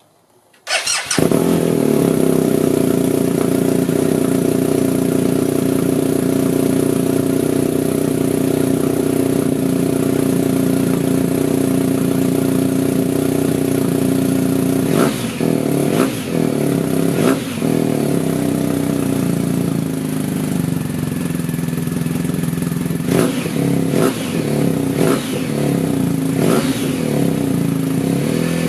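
BMW R1250 GSA's boxer-twin engine, fitted with an Akrapovič slip-on end can, started from cold about a second in and idling steadily. It is revved three times in quick succession about halfway through and several more times near the end, each rev rising and dropping back to idle.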